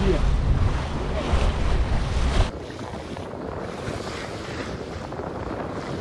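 Wind buffeting the microphone over water rushing along a sailing yacht's hull as she heels under sail. About two and a half seconds in, this cuts off sharply to a quieter, steadier hiss of wind and waves on open water.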